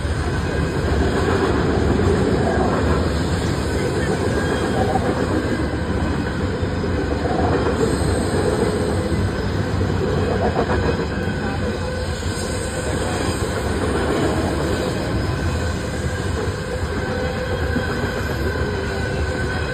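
Freight train's cars rolling steadily past: a continuous rumble of wheels on rail, with faint high wheel squeals now and then.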